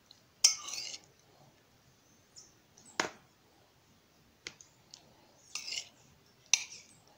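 Metal spoon clinking and scraping against a dish and the tin while scooping cooked mushroom filling: a few sharp clinks, some followed by a short scrape, at irregular intervals.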